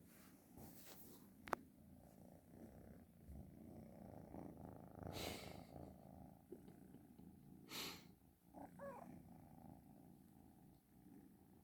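A kitten purring softly and steadily, with a single sharp click about a second and a half in and two brief rustles later on.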